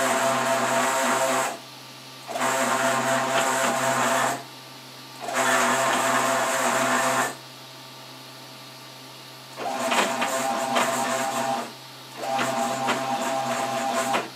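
Stepper motors of a homebuilt H-Bot gantry 3D printer whining as they drive the print head, in runs of about two seconds separated by short pauses, with one longer pause in the middle. The later runs carry rapid ticking. A steady low hum continues underneath.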